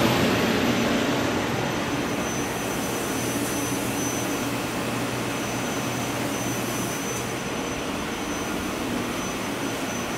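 Steady whir and hum of a powered-up, idling 1996 Haas VF3 CNC vertical machining center's electrical cabinet, with a faint thin high whine above it. It eases off a little over the first two seconds, then holds level.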